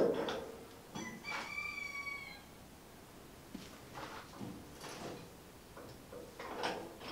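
Steel Land Rover Series 3 chassis creaking as it is strained back straight on the chassis table. A clunk right at the start is followed about a second in by one drawn-out squealing creak, falling a little at its end, then a few faint creaks and ticks as the metal gives under the load.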